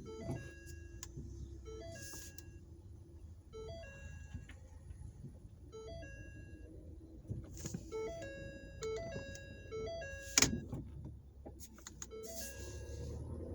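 Short electronic beeps at several pitches, coming in clusters, over a low engine rumble, with one sharp knock about ten and a half seconds in.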